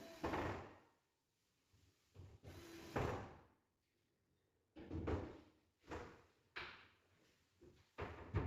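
MDF wardrobe panels and parts being handled during assembly: a run of separate wooden knocks and scrapes, each starting sharply and dying away within about half a second.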